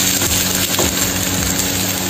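A metal ladle stirring chayote and chicken pieces in a frying pan, with scraping and frying sizzle over a steady low hum.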